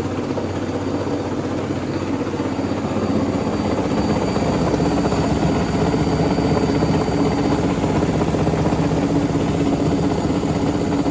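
Hotpoint Ariston washing machine running, its drum spinning with a rapid, steady knocking that grows louder about four seconds in. The knock comes from a loose front counterweight on the tub.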